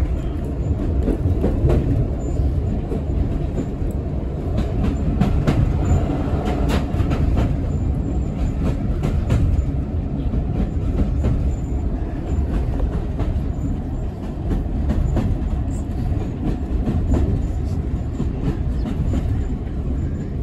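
Steam-hauled passenger train running along the line: a steady low rumble of the coaches, with the clickety-clack of the wheels over rail joints now and then.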